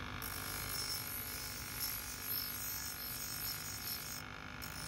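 Bench grinder running with a steel knife blade pressed against the wheel: a steady motor hum under the high hiss of grinding steel. The grinding hiss drops out for a moment near the end as the blade comes off the wheel, then resumes.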